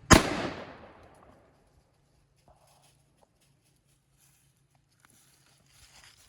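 A single gunshot, its echo dying away over about a second.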